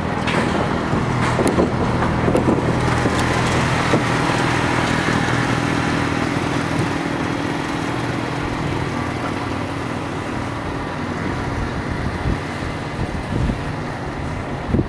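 A steady engine drone with a low hum, easing off slowly toward the end, with a few faint clicks in the first seconds.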